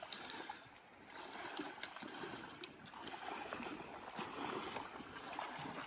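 Water sloshing and splashing around wading legs as people cross a shallow, rocky river on foot, over the steady flow of the river across the stones.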